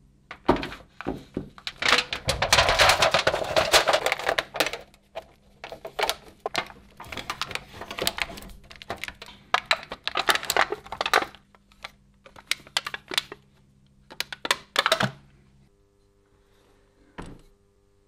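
Thin stainless steel foil crinkling and crackling in irregular bursts as it is folded and pressed around a steel block, with a few knocks of the block on the wooden bench. Near the end a steady low hum comes in, with one short sound.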